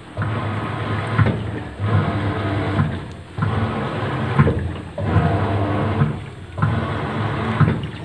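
Whirlpool Classic 601s top-load washing machine starting its wash: the pulsator churns the load in water with a swishing sound over a motor hum. It comes in even strokes about every second and a half, with a short pause between each.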